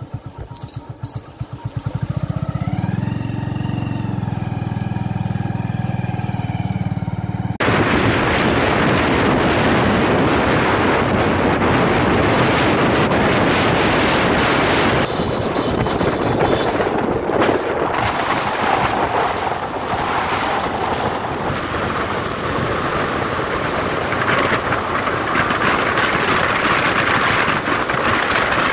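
Motorcycle engine running, its pitch rising as it picks up speed and then holding steady. A few seconds in it gives way abruptly to loud, steady rushing wind and road noise of riding.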